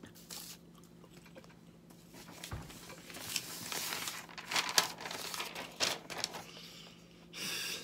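Sheets of paper rustling and crinkling as they are sorted through and one is lifted up, in a string of short crackles.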